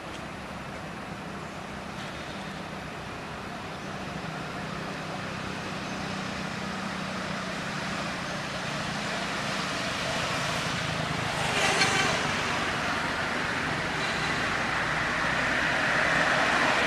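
Road traffic noise: a steady low engine hum and tyre noise from passing vehicles, growing louder about halfway through and again near the end.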